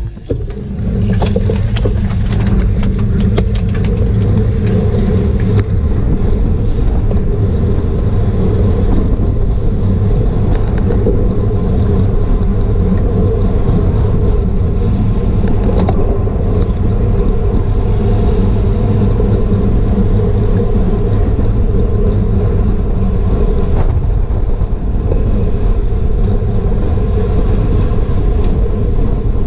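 Wind rushing over a GoPro microphone on a racing bicycle at speed: a loud, steady rush, with a flurry of sharp clicks in the first few seconds.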